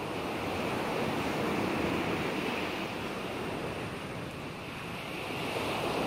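Ocean surf as a background sound: an even rush of waves that swells around the first couple of seconds, eases a little past the middle, then builds again.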